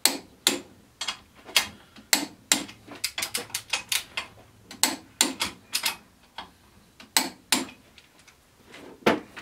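Long torque wrench clicking as it tightens the 5/8-inch carrier cap bolts on a Ford 9-inch third member's cast case: sharp metallic clicks in irregular clusters, with a few louder single clicks.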